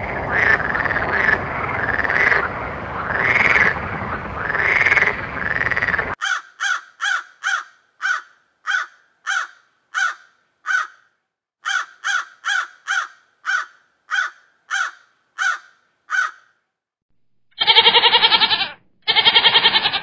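A string of separate animal clips. First about six seconds of a noisy, repeated animal call that rises and falls about once a second. Then house crows cawing in short, evenly spaced caws about two a second, with a brief pause midway. Near the end come two loud, drawn-out goat bleats.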